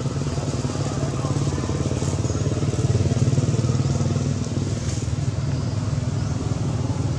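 An engine running steadily with a low hum, a little louder around the middle.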